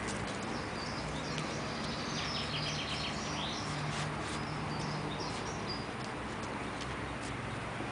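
Small birds chirping, with a quick trill about two and a half seconds in, over a steady low hum and hiss of outdoor background noise.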